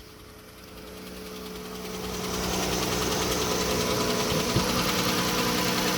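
Chrysler 3.6 Pentastar V6 idling with a light, even ticking from the valve train, which the mechanic suspects is an early-stage rocker arm failure. The sound grows louder over the first two seconds or so, then holds steady.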